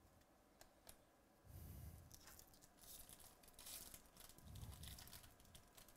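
Foil wrapper of a 2018 Topps Stadium Club baseball card pack being torn open and crinkled by hand, faint. A couple of light clicks from cards being handled come before the tearing.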